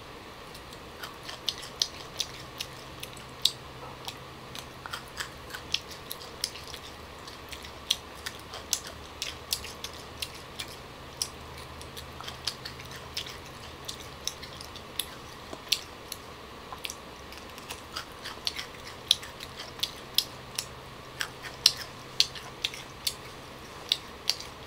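Close-miked chewing of young green tamarind pods, with irregular sharp crunches about two or three a second.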